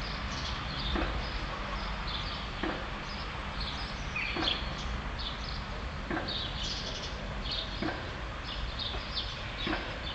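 Small birds chirping in a garden: many short, high notes scattered throughout, with a sharper call repeating roughly every two seconds, over a low steady hum.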